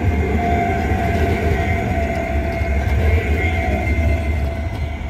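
CAF Urbos low-floor tram passing close by: a steady low rumble of wheels on rail with a thin steady whine on top, easing slightly near the end.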